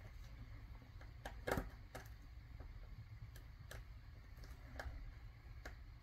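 Scattered small clicks and taps of a precision screwdriver turning the screw terminals of a wire splice connector as the wires are clamped in, the loudest about one and a half seconds in, over a faint low hum.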